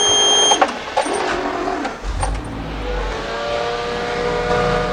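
A 2018 Blue Bird Vision school bus's Ford 6.8-litre gasoline V10 being started from the driver's seat: a short high beep at first, then the engine fires about two seconds in and settles into a steady idle.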